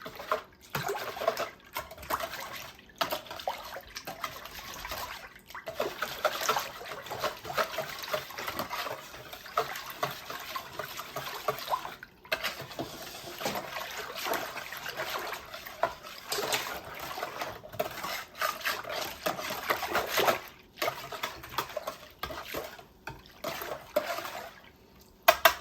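Liquid batter being stirred and sloshed by hand in a bowl, with wet splashing in irregular spells and short pauses between them.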